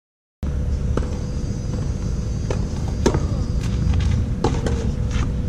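Tennis ball being struck and bouncing on a clay court: sharp separate pops roughly a second apart, over a steady low rumble. The sound cuts in about half a second in.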